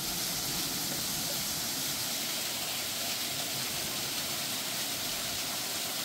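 Water pouring and splashing off a large water wheel: a steady rushing hiss.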